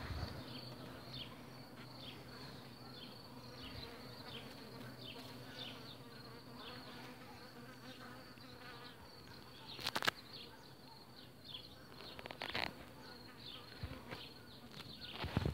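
Honeybee colony buzzing steadily over the exposed frames of an open hive. There is a sharp click about ten seconds in and another about twelve and a half seconds in.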